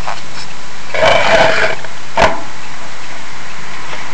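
Steady background hiss, broken about a second in by a short rough sound lasting under a second, and by a single click a little after two seconds in.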